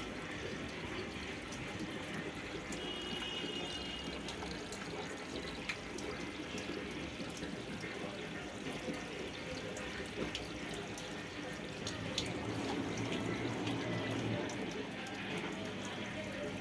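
Water running steadily into a washing machine as it fills through its inlet valves, with a few faint clicks.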